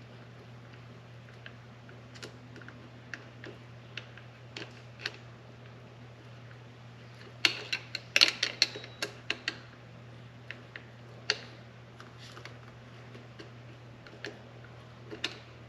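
Scattered light clicks and taps of hand tools and metal clamps as pod filters are fitted to a motorcycle's carburettors, with a quick run of louder clicks about halfway through. A steady low hum runs underneath.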